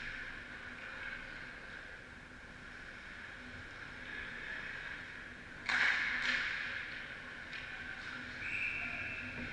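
Indoor ice-rink ambience during a hockey game, with two sudden loud scraping hisses of skate blades on the ice about six seconds in, and a short steady high whistle tone, likely a referee's whistle, near the end.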